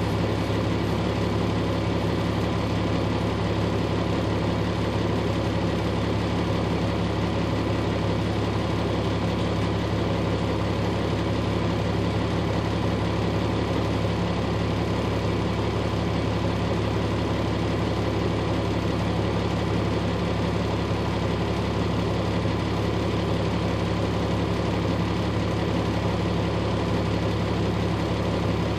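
Truck engine idling steadily while the vehicle stands still, heard from the cab.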